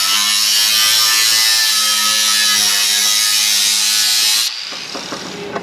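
Electric power tool running steadily, with a high hiss over a motor whine, as it cuts open the second CTS-V muffler; it shuts off suddenly about four and a half seconds in.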